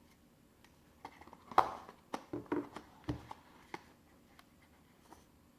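A phone's retail box and its contents handled by hand. There are light taps, clicks and rustles, the loudest about one and a half seconds in, and they die down after about four seconds.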